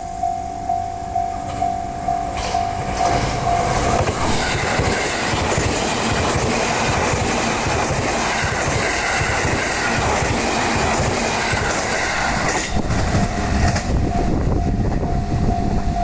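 Japanese level-crossing warning bell ringing about twice a second as an E657 series electric limited express train passes close by. The train's wheels clatter rhythmically over the rail joints and drown out the bell for about nine seconds before it is heard again near the end.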